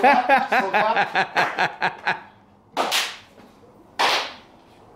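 Men laughing and talking, then two sharp slaps of hands about a second apart.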